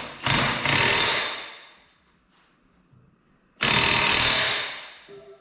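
Air-powered shop tool run in bursts: a short burst, a longer one that fades out, then after a pause of about two seconds another that fades out.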